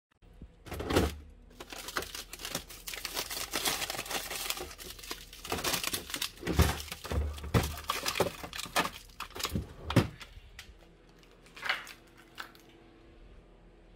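Plastic pouches of frozen grilled steak crinkling and rustling as they are pulled from a freezer drawer and handled, with a few dull thumps of the frozen packets. The rustling thins out near the end to a couple of separate crinkles.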